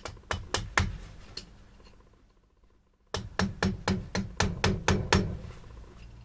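Hammer blows on a chisel cutting into wood: a quick group of about six strikes, a short pause, then a faster run of about nine strikes at roughly four a second.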